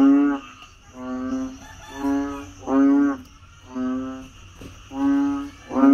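A frog giving its breeding call: a low call about half a second long, repeated roughly once a second in sets of three, with the third call of each set the loudest.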